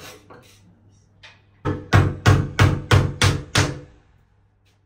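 About eight heavy bangs in quick, even succession on a wooden bathroom door, starting about a second and a half in and lasting about two seconds: someone locked inside the bathroom banging on the door to get out.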